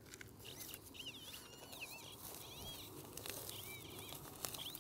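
Faint scraping and clicking of a hand digging tool and fingers working dry, stony soil. Small birds chirp repeatedly in the background in short rising-and-falling calls.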